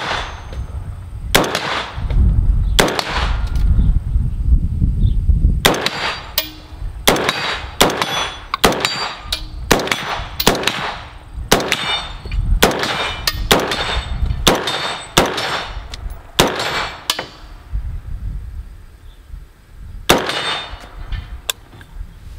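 Rapid semi-automatic fire from a 5.56 IWI Zion-15 AR-15 fitted with a VG6 Gamma muzzle brake: about twenty shots at an irregular pace of roughly one to two a second, with a pause near the end. Steel plates ring with a clang after the hits.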